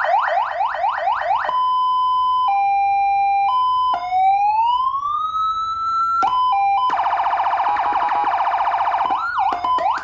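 Carson 100-watt siren speaker driven by a CJB 200-watt siren module on 12 volts, stepped through its tones: fast repeated rising yelps, then a steady two-tone hi-lo, then a slow rising wail, then a rapid warble, ending in a few sweeps. Loud even at a low volume setting.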